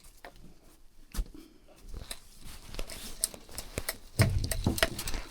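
Hand scrubbing and wiping of oily engine parts washed down with petrol: irregular clicks, scratches and small knocks, getting busier from about two seconds in, with a louder knock just after four seconds.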